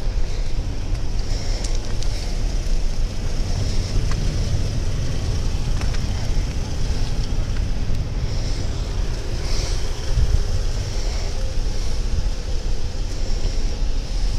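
Wind buffeting a body-worn camera's microphone: a steady low rumble with a faint high hiss above it.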